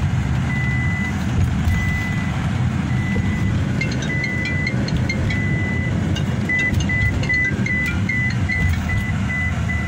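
Road and engine rumble inside a moving vehicle's cab, with an electronic warning beep at one steady pitch sounding over it. The beep comes in pulses of about half a second at first, then turns to short quick beeps, about three a second, from roughly six and a half seconds in.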